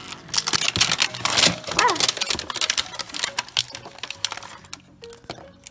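Plastic and paper toy packaging crackling and rustling as it is handled and peeled open, in quick irregular clicks that thin out after about three and a half seconds. A brief squeaky sliding tone comes about two seconds in.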